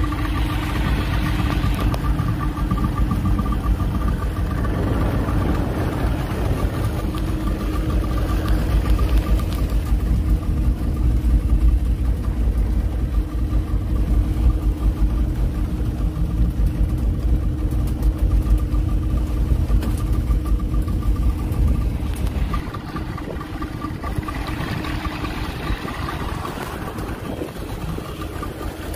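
A small fishing boat's outboard motor running steadily, with a deep rumble, a steady hum and a faint higher whine over the wash of wind and water. The deep rumble drops away about three-quarters of the way through while the engine hum carries on.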